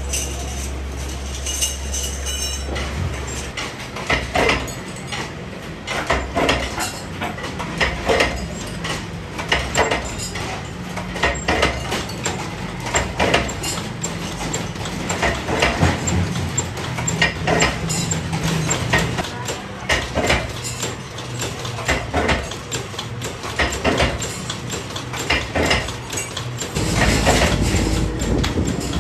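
Stainless steel parts knocking and clinking at an irregular pace, as the metal is worked by hand, with a steady low hum for the first few seconds.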